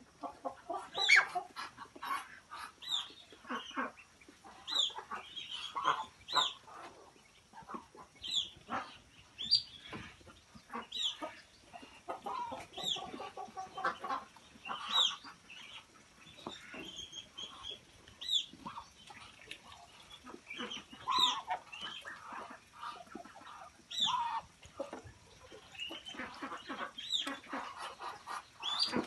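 Poultry calling in a pen: a high, falling peep repeated about every second and a half, over softer clucking calls and short scuffling knocks.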